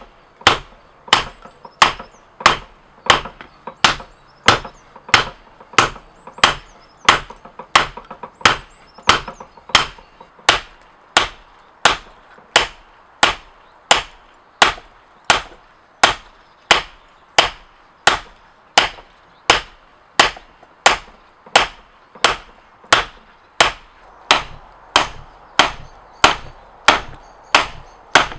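Steady, evenly paced hammer blows on steel being forged, about three strikes every two seconds, each a sharp clang with a short ring.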